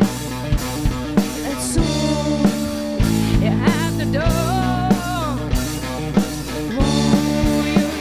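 Live rock band playing, with a drum kit keeping a steady beat of about two strokes a second under electric guitar, bass, saxophone and trombone. A melody line slides up and down in pitch in the middle.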